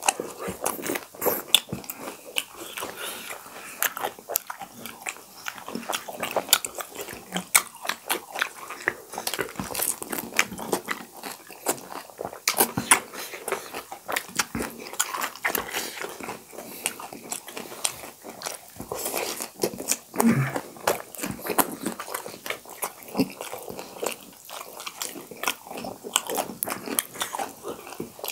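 Two people eating pani puri close to the microphone: crisp puri shells crunching as they are bitten, with wet chewing, in an irregular run of crunches.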